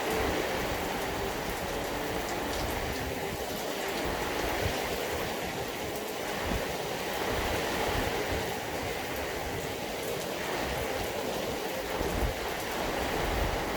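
Steady rainfall: an even hiss with occasional drops ticking.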